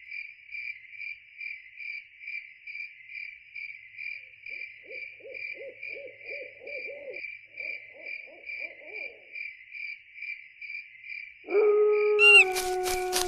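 Spooky night-time sound effect: a steady high chirping that pulses about three times a second, like crickets, with a run of fast low hoots from about four to nine seconds in. Near the end a loud sudden drawn-out cry comes in, slowly falling in pitch over crackling noise.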